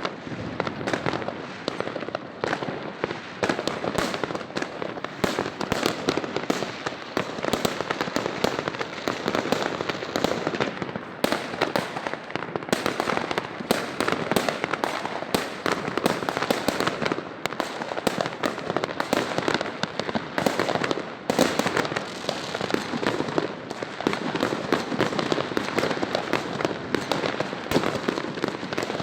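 Fireworks going off without a break: a dense, continuous run of bangs and crackling pops.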